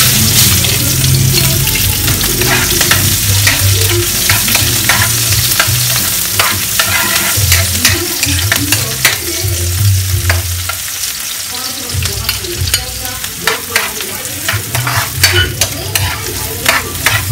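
Sliced onions sizzling in hot oil in a wok. The sizzle starts as they go into the pan, and a spatula clacks and scrapes against the pan many times as they are stirred.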